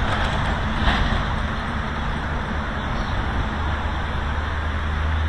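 Steady rush of a trout river running over a rippled riffle, with a low steady rumble beneath it.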